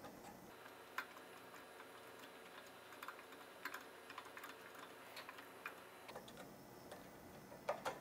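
Faint, scattered light clicks and taps of small hardware being handled while fitting parts onto an aluminium-extrusion printer frame: a plate, a printed bracket and a hex key against the extrusion.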